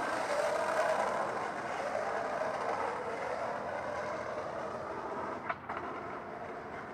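Skis sliding and scraping over packed snow, with wind on the microphone, growing quieter as the skier slows to a stop; a short click about five and a half seconds in.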